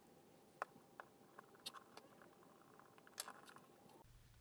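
Near silence with a few faint, scattered clicks and light taps of small plastic parts of a car instrument cluster being handled during reassembly.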